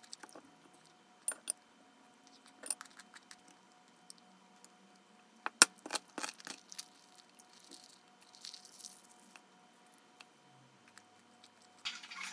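Scattered small clicks and clinks of hard household objects being handled and set down, a second or more apart, the sharpest about five and a half seconds in; a denser rustling clatter starts just before the end.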